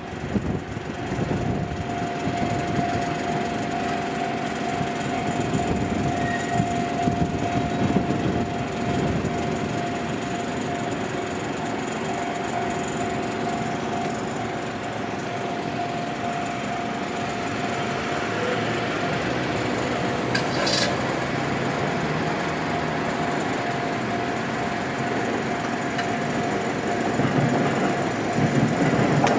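Train on the JR Gotemba Line running, a steady rumble of wheels on rail with a held mid-pitched whine over it.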